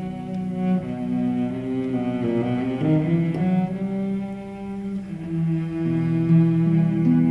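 Cello and concert harp playing together: the cello bows sustained singing notes over the harp's plucked accompaniment, moving through a few note changes and then settling into a long held note about five seconds in.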